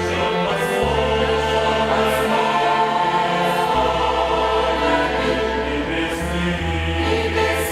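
Church choir singing a slow hymn with a violin ensemble accompanying, over held low bass notes that change every second or two.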